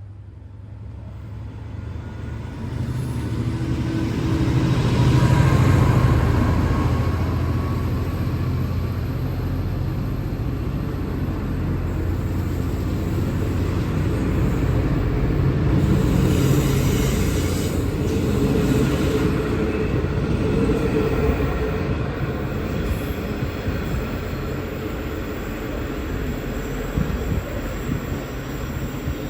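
V/Line N class diesel-electric locomotive pulling away from the platform. Its engine rumble builds over the first five seconds, then the train rolls steadily past with a continuous rumble of engine and wheels.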